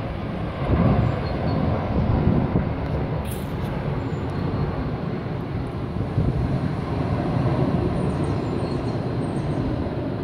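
Jet airliner flying low on approach to the airport: a steady, deep rush of engine noise without breaks.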